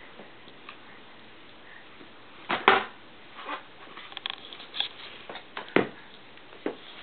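A toddler handling cardboard board books on a carpet: scattered short knocks and page flaps, the loudest about two and a half seconds in, with a cluster of lighter taps in the second half.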